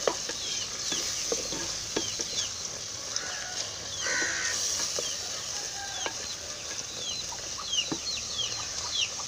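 Chicks peeping over and over in short falling chirps, over the steady hiss of masala frying in a clay pot. A few sharp knocks come from the stirring spoon against the pot.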